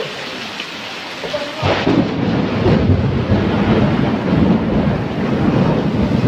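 Rain falling steadily, then a loud clap of thunder breaks out about one and a half seconds in and rumbles on heavily over the rain.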